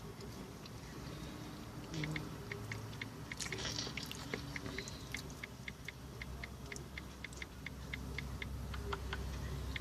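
A fast, even ticking, about four or five ticks a second, starting about two seconds in and stopping shortly before the end, over a low steady rumble.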